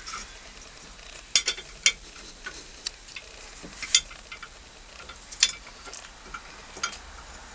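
Sharp, irregular metal clicks and clinks, about half a dozen, as the parts of a steering wheel puller (ring, bolt and body) are handled and settled against the wheel.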